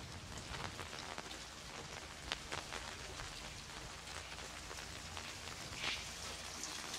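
Rain falling on wet street pavement: a steady patter with a few sharper drips here and there.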